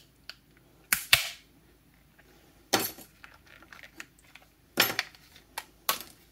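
Plastic snap-fit clips of a Dyson DC58 battery pack housing popping loose as the case is pried apart with a plastic tool: sharp snaps, a close pair about a second in, then three more spaced a second or two apart.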